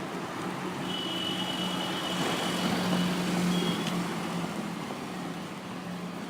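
Road traffic at night: vehicles going past over a steady low hum, one passing closer and swelling to its loudest about halfway through before fading. A thin high tone sounds for a couple of seconds starting about a second in.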